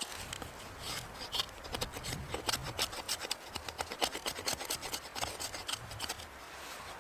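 Rapid, irregular rasping and scraping strokes with small clicks, rubbing on a hard surface such as wood.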